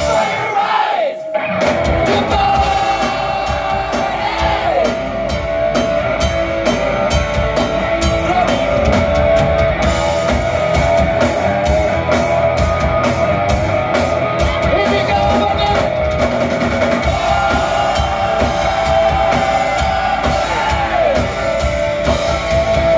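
Live rock band playing loudly: electric guitar, bass guitar and drum kit, with a brief break in the playing about a second in before the band comes back in full.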